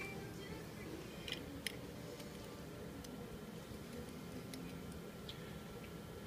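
A few faint, sharp clicks of metal surgical instruments being handled, scattered over a low, steady background hum.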